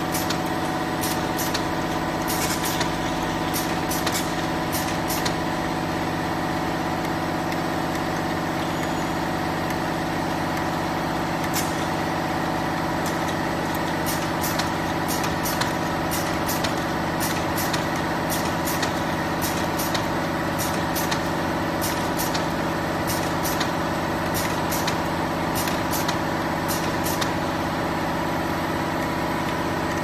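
Automatic four-wheel bottle capping machine and conveyor running: a steady mechanical hum made of several steady tones, with frequent sharp clicks in irregular clusters.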